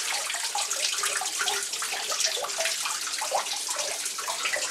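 Water trickling and splashing steadily into the basin of a small decorative stone grotto fountain.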